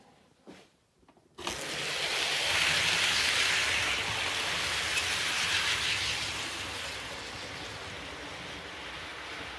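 HO scale model train running on the track, a steady rushing rumble that starts abruptly about a second and a half in after a few faint clicks, then eases slightly.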